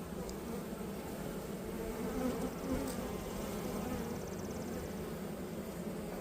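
Honeybees from an opened hive buzzing steadily, a dense hum of many bees with pitches wavering up and down.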